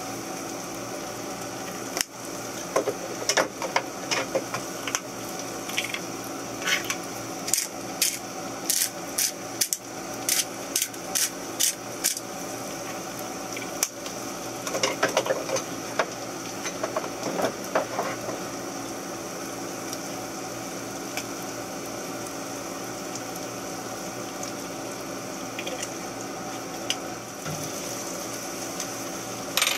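Kitchen utensils clicking and tapping against a bowl and cutting board as salsa is prepared, over a steady background hum. The clicks are quick and frequent in the first half and thin out to a few taps later on.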